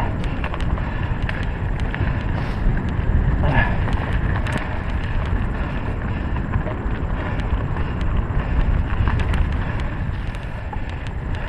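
2016 Trek EX9 29 mountain bike ridden along a dirt trail: a steady low rumble of wind buffeting the microphone and tyres rolling, with frequent small clicks and rattles from the bike.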